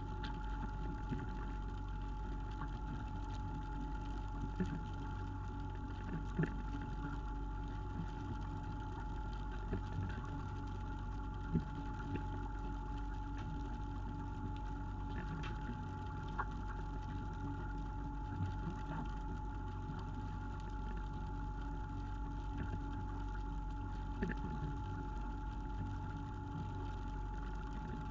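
Fishing boat's engine running steadily with a constant hum and whine, with scattered short knocks every few seconds.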